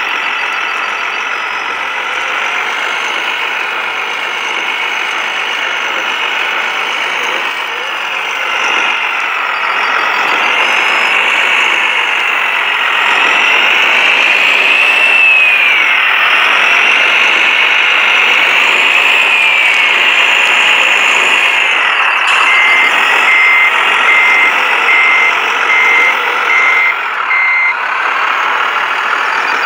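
Electric whine of 1:14-scale RC hydraulic construction models, the hydraulic pump motors rising and falling in pitch as the machines work. In the last third, about seven reversing beeps from a model's sound module, a little under a second apart.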